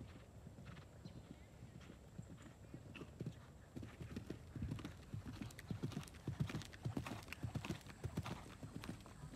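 A horse's hooves cantering on soft arena footing, a run of dull thuds that grows louder from about halfway through as the horse comes close.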